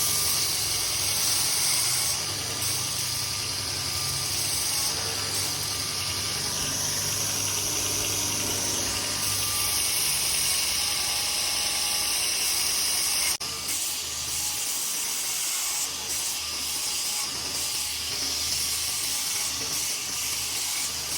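Handmade belt-type surface grinder running, its abrasive belt grinding a small part in a pass: a steady hiss over a low motor hum. About thirteen seconds in there is a sharp click, after which the low hum is weaker.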